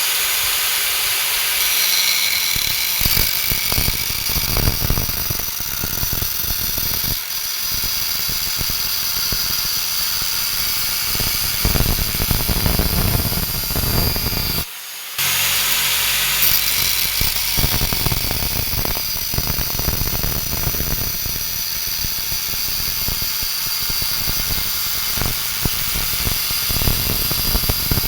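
Power grinder working leaf-spring steel: a steady, loud grinding noise that breaks off briefly about halfway through.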